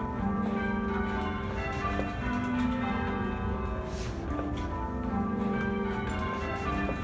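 Church bells being rung in changes by hand-pulled ropes, heard from the ringing chamber beneath them: a steady run of overlapping bell strikes, each ringing on into the next.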